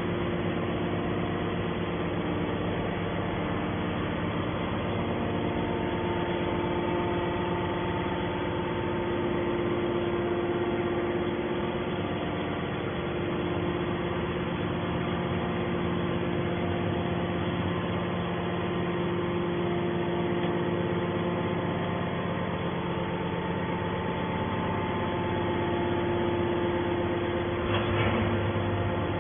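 Hydraulic aluminium-can baler running, its power unit giving a steady hum with several constant tones, and a brief knock near the end.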